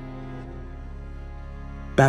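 Soft, sad background music with steady held tones.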